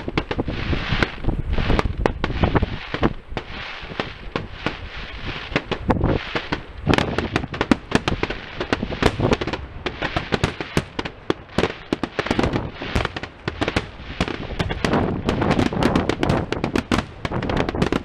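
Aerial firework shells bursting in rapid, overlapping succession: a dense, continuous run of sharp bangs and crackles, many to the second.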